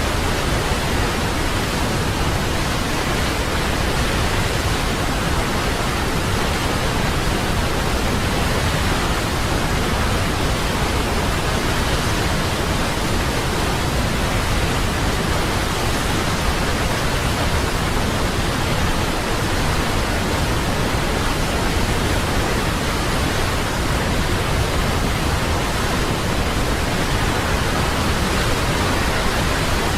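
A waterfall: falling water rushing steadily, with no change in level.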